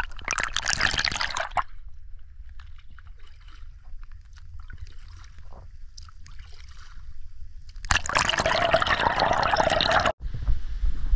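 Paddle strokes splashing water right at a camera held at water level beside an inflatable raft. A loud splash comes first, then a quieter stretch of trickling and dripping with a low rumble of water against the camera. A second long splash starts about eight seconds in and cuts off abruptly about ten seconds in.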